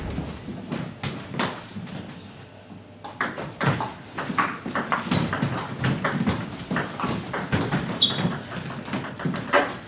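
Table tennis ball clicking back and forth off bats and table in a doubles rally: a few scattered clicks at first, then a quick, steady run of clicks from about a third of the way in until near the end.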